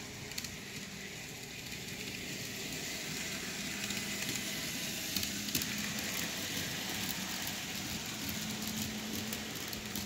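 N-scale model train running along the track: a steady hissing rumble of small wheels on rail and the locomotive motor, growing louder over the first few seconds and holding there.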